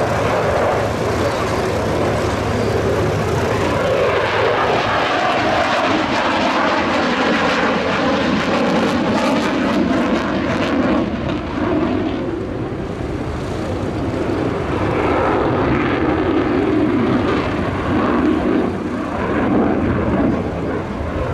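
Single Pratt & Whitney F100 turbofan of an F-16AM Fighting Falcon, loud and continuous as the jet flies display manoeuvres, its pitch and level drifting as it moves across the sky.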